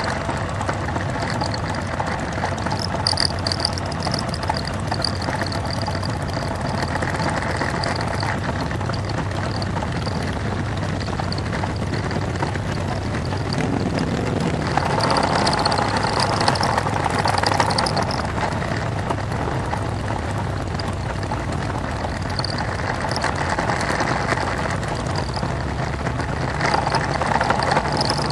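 Many motorcycle engines running at low speed in a slow, crowded group ride: a steady drone of engines close by, a little louder about halfway through.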